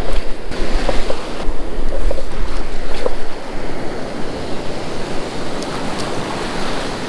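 Ocean surf washing and foaming in the shallows: a steady rush of water that is louder for the first three seconds or so and then eases off. Wind rumbles on the microphone underneath.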